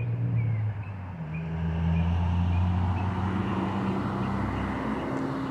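A motor vehicle passing: a steady low engine hum with a rushing noise that swells about two seconds in and fades slowly. Short, high chirps repeat through the first half, like a small bird calling.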